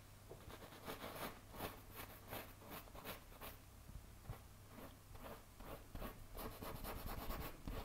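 Paintbrush strokes on a stretched canvas: faint, short scratchy brushing, a few strokes a second, growing denser near the end.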